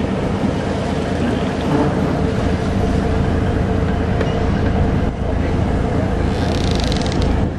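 Boat engine running steadily, a continuous low hum with a fixed pitch. A brief hiss rises near the end.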